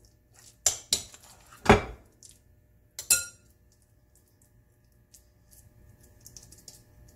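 A metal spoon clinking and knocking against a glass mixing bowl: four sharp knocks in the first three seconds, the last ringing briefly. After that, only faint, soft sounds of the patty mixture being handled.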